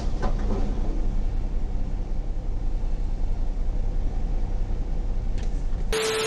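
Steady low rumble of a stopped car's engine and cabin, picked up by a dashcam inside the car. About six seconds in it cuts to a burst of TV static hiss with a steady beep tone, a video transition effect.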